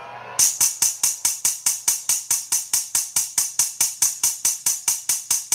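A beat's percussion loop starts about half a second in: a fast, even tambourine-like pattern of about five bright strokes a second, with no other instrument clearly under it.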